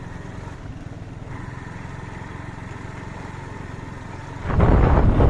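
A scooter runs steadily while riding, with a faint steady whine joining after about a second. Near the end, loud wind buffeting on the microphone suddenly takes over.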